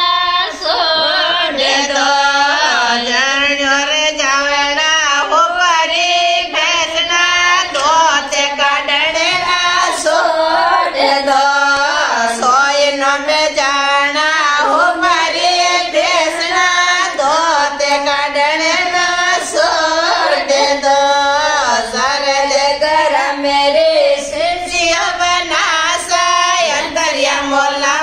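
Women singing a Marwari wedding folk song (vivah geet) together in a steady, repeating melody, with no instruments.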